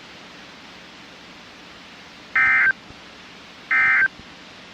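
Weather-radio static hiss, broken twice by short, loud bursts of SAME digital data tones about a second and a half apart: the end-of-message code that closes a NOAA Weather Radio weekly test.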